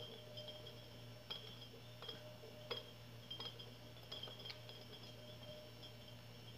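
Faint, sharp clicks and taps, about nine of them, the loudest nearly three seconds in, as two cats bat a dangling rubber puffer ball on an elastic string. A steady low hum runs underneath.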